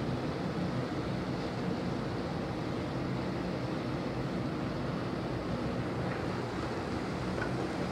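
Steady rushing noise with a low hum underneath, even throughout, with no distinct knocks or clinks.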